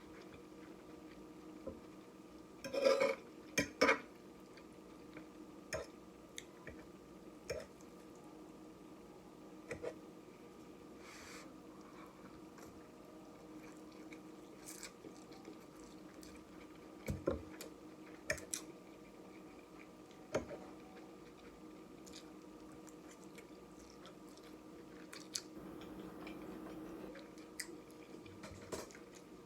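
A person chewing and eating noodles and fish, with scattered clicks and clinks of utensils against a dish and a cluster of louder clatters about three seconds in, over a faint steady hum.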